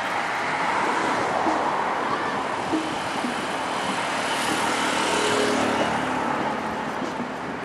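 Steady urban traffic noise, with a low engine hum that swells and fades about halfway through.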